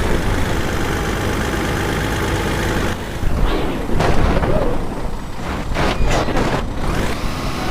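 Concrete mixer truck's diesel engine running steadily, with a few sharp knocks around the middle.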